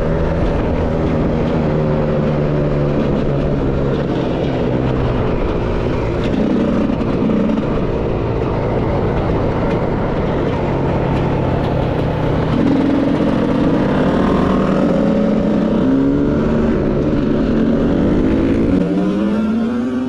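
Enduro dirt bike engine ridden hard, its pitch rising and falling as the throttle is opened and closed through the gears. A sharp rev climbs in pitch near the end.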